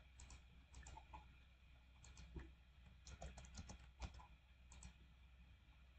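Faint computer keyboard typing: scattered key taps, with a quick run of several taps about three seconds in.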